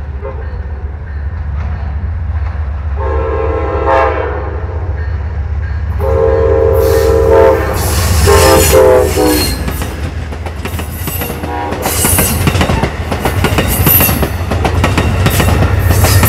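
Amtrak passenger train led by a GE P42DC diesel locomotive sounding its horn in three blasts, about three, six and eight seconds in. The train then runs past close by, with wheels clattering over the rail joints, and this grows loudest near the end.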